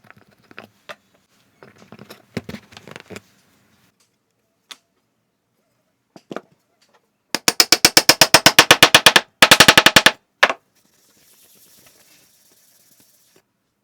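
A fast, evenly spaced run of sharp strikes, about a dozen a second, in two bursts lasting about two seconds and one second, followed by a single strike; faint scattered clicks come before it and a faint high hiss after.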